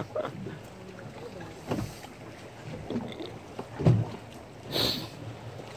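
Sea water lapping and sloshing, with wind on the microphone; a few soft thumps and a brief splash near the end.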